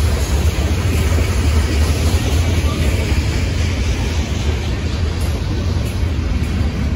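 Freight cars of a CSX manifest train rolling past on the track: a steady heavy rumble of steel wheels on rail with a noisy clatter over it.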